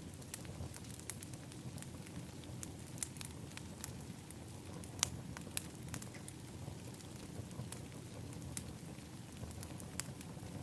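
Outdoor fire pit burning steadily under a low rush of flame, with irregular sharp crackles and pops. A few louder pops come about halfway through.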